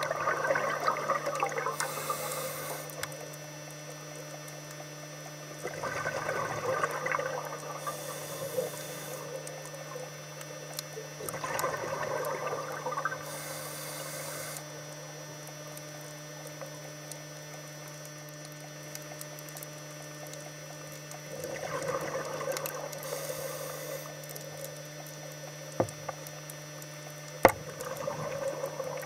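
Scuba diver breathing through a regulator: exhaled bubbles gurgle in bursts of two to three seconds, five times, with short hisses between them, over a steady low hum. Two sharp clicks near the end.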